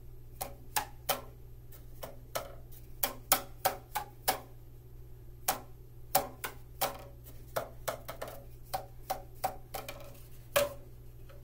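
Homemade boomwhackers cut from cardboard paper-towel tubes, tapped one after another to play a simple tune: a string of short, hollow knocks at a few different pitches in an uneven, melodic rhythm.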